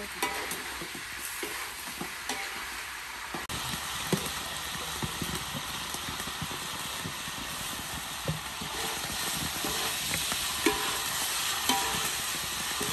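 Food sizzling in a hot wok: a steady frying hiss, with a metal ladle scraping and clinking against the pans now and then.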